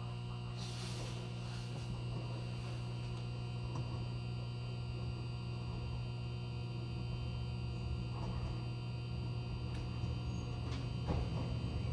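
Steady low electrical hum from the onboard equipment of a stopped JR 103 series 1500 electric car (Moha 102-1512), with a brief hiss about a second in. Near the end a louder rumble builds, as a train approaches.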